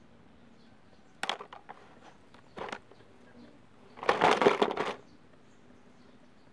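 Small plastic toy kitchen pieces clicking and knocking a few times, then about four seconds in a dense clatter lasting about a second as plastic toy dishes and utensils shift against each other in a plastic basin.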